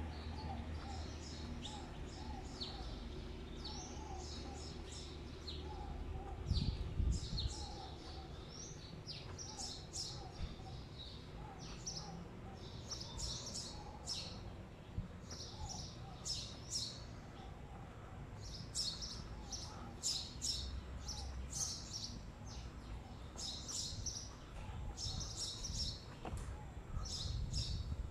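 Small birds chirping in rapid, high clusters over and over, with a softer repeated call lower in pitch, above a steady low rumble of city background. A brief louder low thump comes about seven seconds in.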